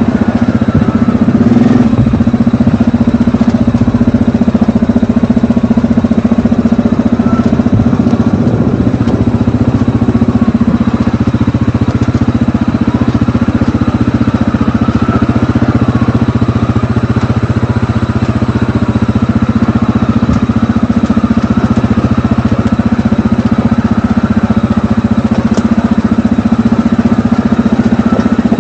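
ATV engine running steadily at an even pitch while being ridden, with no change in speed.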